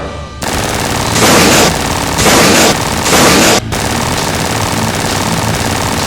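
Rapid automatic machine-gun fire, as a dubbed sound effect: three louder bursts in the first few seconds, then a steady rattle of fire.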